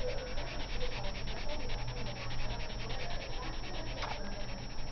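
Black felt-tip marker rubbing back and forth on paper in quick, even strokes, several a second, as a black area is filled in. A single sharp click about four seconds in.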